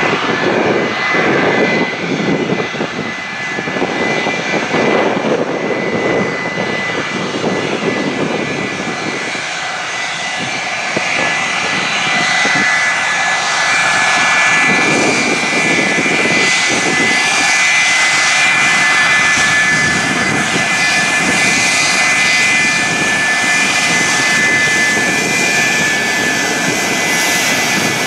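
McDonnell Douglas MD-83 jet taxiing, its two tail-mounted Pratt & Whitney JT8D turbofans at low taxi power. A steady high-pitched whine sits over a rushing engine noise, and both grow louder about halfway through as the jet draws close.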